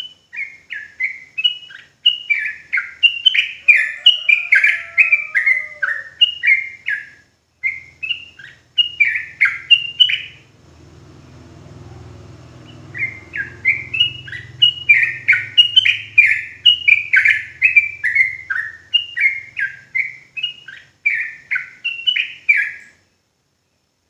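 Yellow-vented bulbul (trucukan) singing its rapid rolling song: a quick run of short, falling, clear notes, two or three a second. About ten seconds in, the song breaks off for a couple of seconds, with a low rumble in the pause, then resumes in a second long run.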